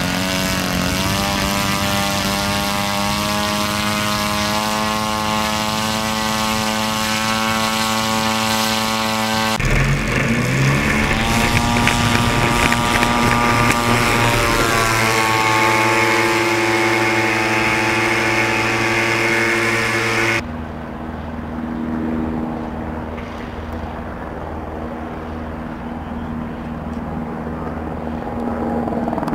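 A fixed-wing drone's small engine driving its propeller. It revs up in the first second or two and runs at a steady high pitch, then after a cut it rises in pitch again as it throttles up and holds. For the last third it is quieter, heard with the drone in flight overhead.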